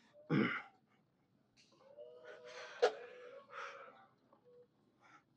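A man's forceful, breathy exhales and grunts as he strains through leg extension reps: one just after the start and one at the very end, with a longer strained breath and a sharp click in between.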